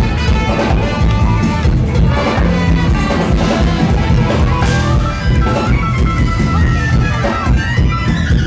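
Jazz-fusion band playing live and loud, a trumpet to the fore over drums and electric guitar and bass. The sound is rough, recorded right next to the stage.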